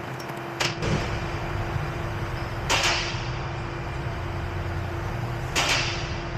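Repair-shop noise: a low rumble with a faint steady hum underneath, and three short loud hissing bursts about two to three seconds apart.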